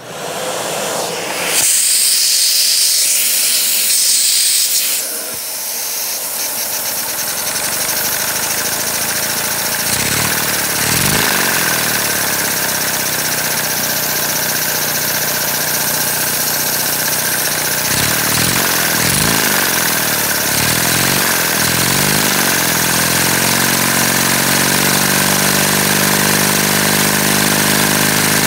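LEGO vacuum engine running flat out: a fast, dense clatter of plastic pistons and valves over a steady rush of air. It starts with a loud hiss, then builds up speed, and the pitch sweeps up and down several times partway through.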